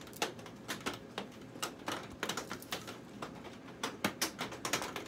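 Rain falling on the greenhouse, heard as many sharp, irregular taps of drops, several a second.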